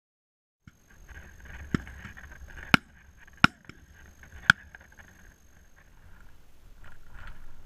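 Four sharp shotgun shots fired at driven red grouse, spread over a little under three seconds, over wind noise on the microphone.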